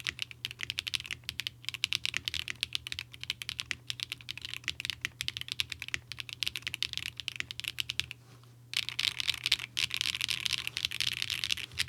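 Typing on a Zoom75 mechanical keyboard with SWK Catmint switches on a polycarbonate plate, stock with only the battery foam: a rapid stream of key clacks. It stops briefly about eight seconds in, then resumes faster, the keystrokes running together.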